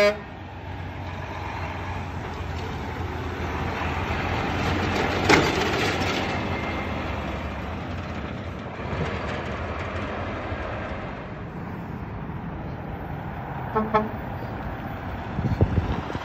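A Mack concrete mixer truck's diesel engine running as it drives past, with tyre and road noise. A single sharp knock comes about a third of the way in, and a brief horn toot near the end.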